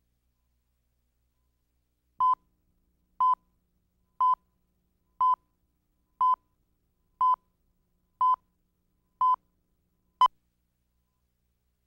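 Tape countdown-leader beeps: a steady single-pitch beep once a second, eight in all, starting about two seconds in, then a last, shorter blip a second later.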